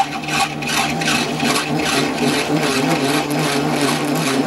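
Metal lathe running steadily at about 220 rpm with a constant gear hum, while a cut-knurling tool's wheel cuts into a 25 mm brass bar with a busy, irregular scratchy ticking.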